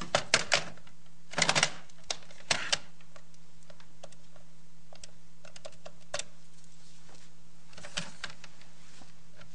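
Corded desk telephone being handled and dialed: scattered sharp clicks and clacks in short, irregular clusters over a steady low hum.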